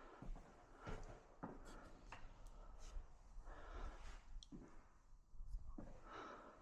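Faint, irregular knocks and scratchy scraping, roughly one knock every second, with no machine running.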